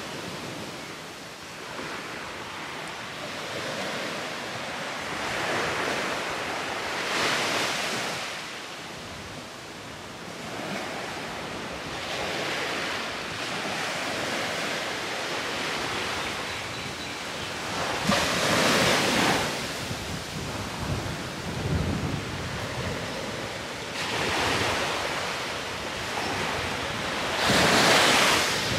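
Sea waves washing onto a shore, swelling into a louder rush every five or six seconds, with some wind on the microphone.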